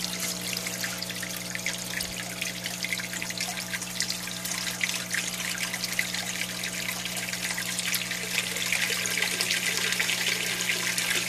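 Water trickling and splashing steadily into an aquaponics fish tank as it drains back from the grow trays, over a steady low hum.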